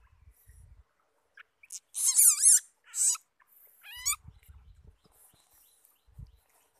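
Baby Asian palm civet squealing while held in the hand: a long high, wavering squeal about two seconds in, a short one a second later, and another rising squeal at about four seconds, with soft handling bumps between.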